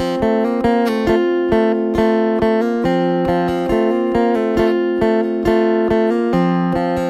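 Background music led by acoustic guitar, with a steady beat about twice a second.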